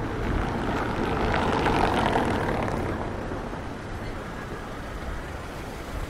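A vehicle passing by on the street: its noise swells over the first two seconds and fades away by about three seconds in, leaving a steady low rumble of traffic.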